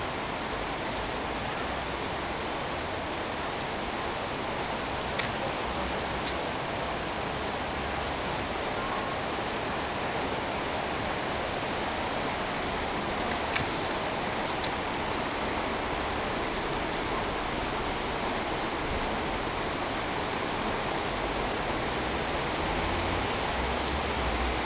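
Heavy rain pouring down in a steady hiss during a thunderstorm downpour, with a couple of faint ticks of drops.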